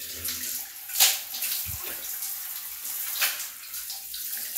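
Shower water spraying steadily onto a person's head and face, a continuous hiss with a couple of sharper, louder splashes.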